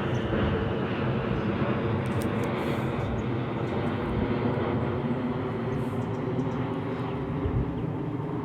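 Steady engine-like rumble with a faint hum running through it.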